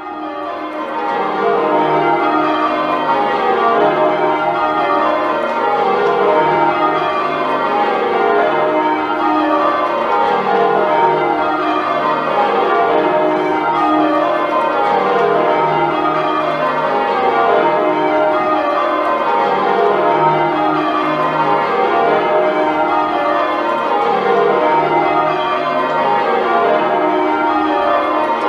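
A ring of ten church bells being change rung, heard from the ringing chamber below: a steady stream of bell strokes in repeated rows running down the scale from treble to tenor.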